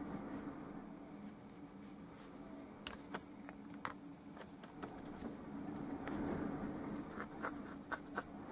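Light scratching of a bristle brush working oil paint, with scattered small clicks, a few together near the end, over a low steady room hum.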